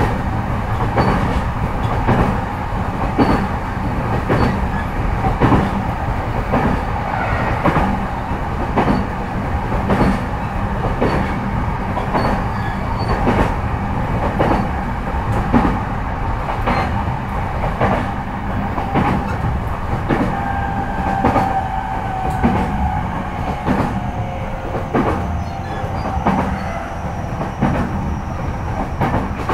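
Onboard running sound of a JR E233-5000 series electric train, heard inside a motor car at speed: a steady rumble of wheels on rail with rhythmic clickety-clack from the rail joints, about one and a half clicks a second. A faint steady whine joins in over the last third.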